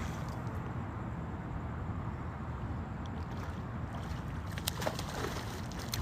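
Boat motor running steadily with a low rumble, and a few faint clicks about two-thirds of the way through.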